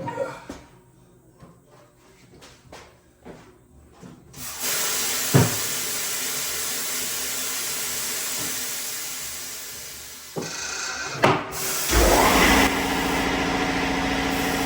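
Tire-changing work on a large motorcycle wheel: a few tool knocks and clicks, then a loud steady hiss lasting about six seconds, then a machine starts running near the end with a low steady hum.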